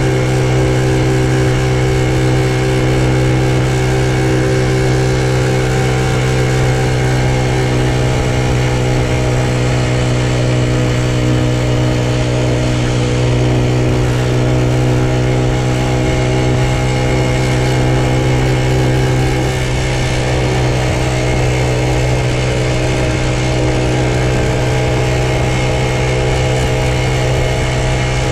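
Honda Super Cub's single-cylinder four-stroke engine running at a steady speed while riding, with a slight drop in level about two-thirds of the way through. The owner reports an abnormal noise coming from this engine.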